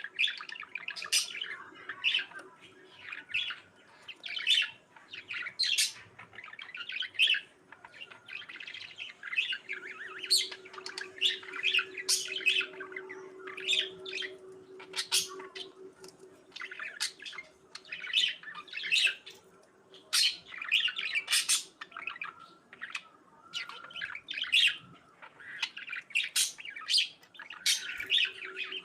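Pet budgerigars chirping and chattering, short high calls following one another almost without a break, with the odd harsher squawk.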